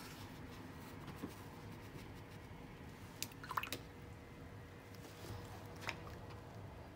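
Faint wet squishing of a watercolour brush dabbing paint onto wet paper, with a few light clicks and taps around the middle and again near the end, over a low steady hum.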